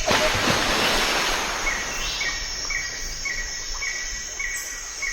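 Outdoor natural ambience: a steady hiss, loudest at the start, with a short high call from a small animal repeating about twice a second from about two seconds in.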